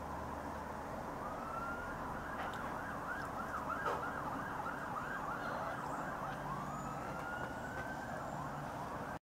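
Emergency-vehicle siren: a slow rising wail, then a few seconds of fast yelping up-and-down sweeps, then a rising wail again, over a steady background hum. The sound cuts off suddenly near the end.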